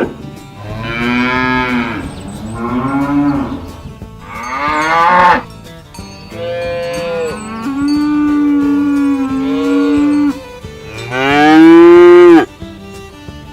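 Cattle mooing repeatedly, about six moos one after another. One long drawn-out moo comes in the middle, and the loudest comes near the end.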